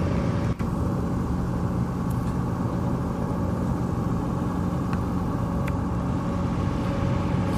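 A motor vehicle engine idling, a steady low hum, with a brief dropout about half a second in.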